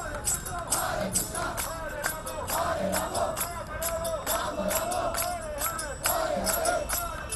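A crowd singing a chant together to a steady beat of hand claps and jingling percussion.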